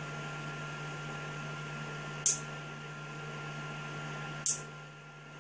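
Nail clippers snipping twice, about two seconds apart, as they trim the excess nail wrap off a fingernail. A steady low hum runs underneath.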